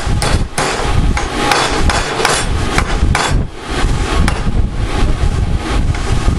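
Hammer blows striking a heated steel bar clamped in a bench vise to bend it: a run of sharp metal strikes at an uneven pace, over a steady low rumble.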